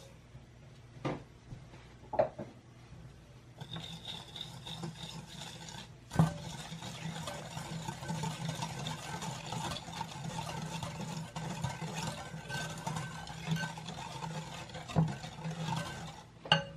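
Wire whisk beating egg yolks and sugar in a glass bowl: a few light clinks near the start, then about six seconds in a steady, rapid whisking with wires scraping and clinking against the glass that stops shortly before the end.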